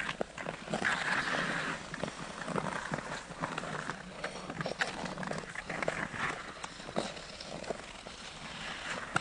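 Ice skate blades scraping and clicking on rough frozen-lake ice, with a longer hissing scrape about a second in.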